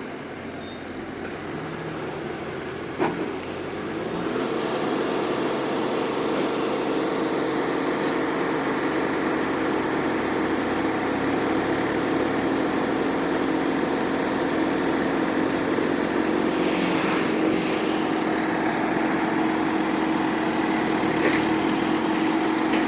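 Heavy truck engine running steadily, growing louder about four seconds in and then holding a constant note. A single sharp click comes just before the rise.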